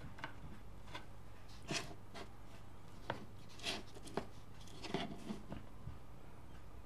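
Small handling noises from steel tweezers and a resin model base: scattered light clicks, taps and short rubs, about six over a few seconds, over a faint steady low hum.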